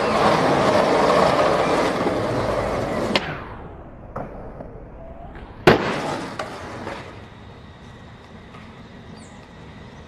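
Skateboard wheels rolling loudly over rough asphalt, then a sharp clack a little over three seconds in. About two and a half seconds later comes a loud smack, the board landing, followed by rolling that fades away.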